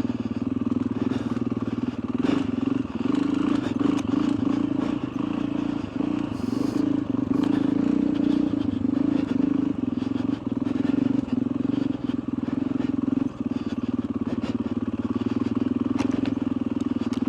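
Motorcycle engine running steadily at low revs while the bike picks its way down a rough track, with scattered clicks and scrapes, some of them from branches brushing the rider's helmet.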